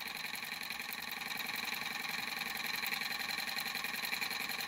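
Small 3D-printed Newman motor running steadily, its spring-loaded brush rubbing on a commutator of copper foil wrapped halfway round, with a fast, even mechanical buzz.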